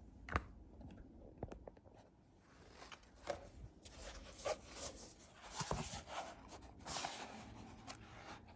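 A hardcover book being handled: a sharp tap about half a second in, then papery rustling and scraping as the cover is opened and the pages are moved.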